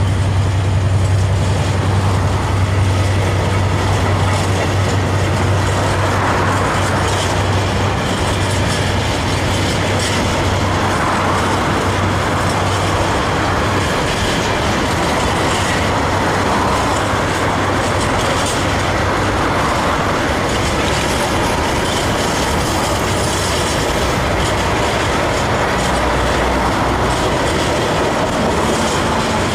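Freight train of covered hopper wagons rolling past, a steady rumble with wheels clattering over the rails. A low hum underneath fades out about halfway through.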